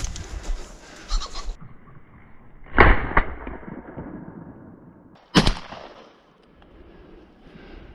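Two shotgun shots about two and a half seconds apart, each dying away in a short echo, fired at a flushed pheasant.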